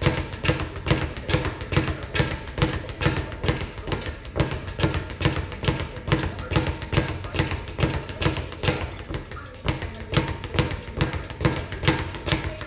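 A speed bag punched in a steady rhythm, the bag rattling against its rebound board about four to five times a second without a break.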